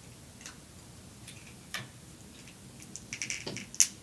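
Snow crab shell being cracked and picked apart by hand: scattered sharp clicks and snaps, sparse at first, then busier and louder near the end.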